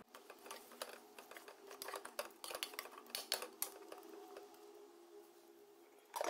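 Chili paste frying in hot oil in a rice cooker pot, crackling and popping irregularly, with a plastic rice paddle stirring it against the pot.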